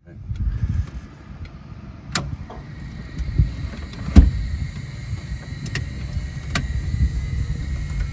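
Clicks and knocks of switches and controls being worked in a 1951 Cessna 170A cockpit during pre-start checks, with the engine not yet running. They sound over a low, irregular rumble, and a faint steady high whine comes in about three seconds in.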